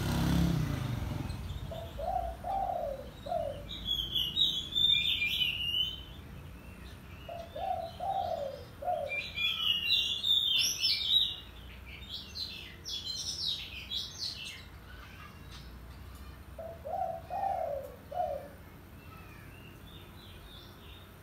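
Oriental magpie-robin singing in bursts of high, rapidly varied whistled phrases. A dove's short, low coo phrase repeats three times between them.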